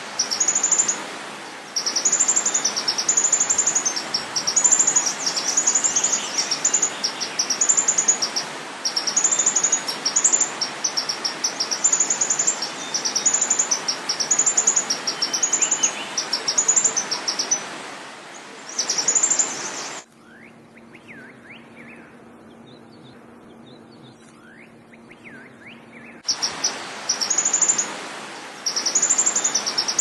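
Songbird chirping: a high, quick phrase repeated about once a second over a steady hiss. About two-thirds of the way through it breaks off for some six seconds, leaving only faint chirps, then starts again.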